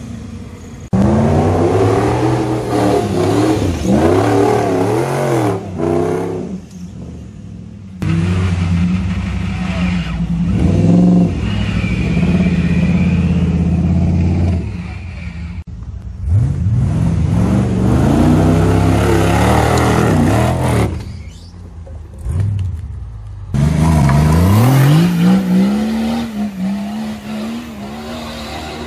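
Off-road 4x4 engines revving hard, the pitch repeatedly climbing and falling with the throttle, in several stretches that cut abruptly from one to the next. Near the end one engine rises and holds a steady high note.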